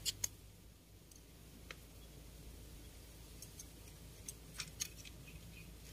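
A few light, sharp clicks and taps from hands handling a fishing pole: two close together at the start, then fainter scattered ones.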